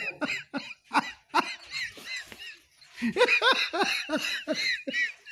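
A person laughing in short repeated bursts, several a second, fainter at first and louder and lower-pitched from about halfway through.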